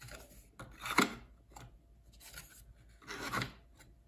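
Thin wooden panels of a flat-pack dice tower scraping and rubbing against each other as they are slid into their slots, with one sharp wooden click about a second in.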